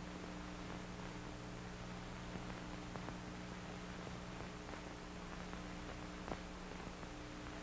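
Faint, steady electrical hum and hiss of an old film soundtrack, with a few soft clicks, the most distinct one about six seconds in.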